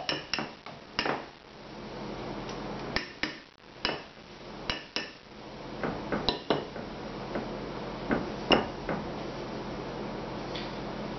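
Metal hand-mixer beaters knocking and clinking against the rim of a glass mixing bowl as mashed potato is tapped and scraped off them: a quick run of taps at the start, then single knocks every second or two, stopping near the end.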